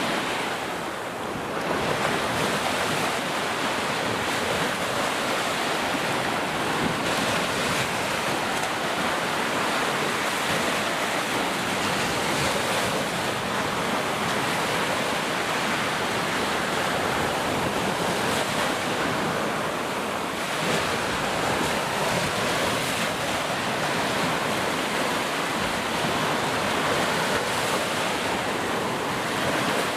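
Heavy rain pouring steadily, a dense, even hiss that swells and eases slightly.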